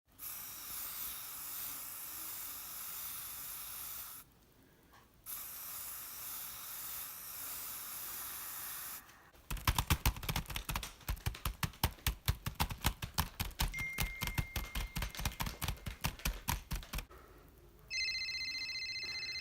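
Steady hiss for most of the first nine seconds, broken by a short gap; then hands rapidly patting a dog's body like bongo drums, a fast irregular run of soft thumps for about seven seconds; near the end a steady high tone sets in.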